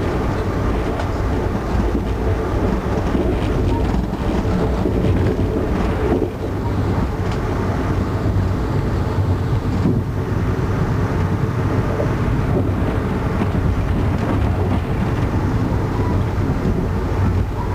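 Amtrak Northeast Regional passenger train riding along the rails, heard from inside the car: a steady low rumble with a few faint clicks.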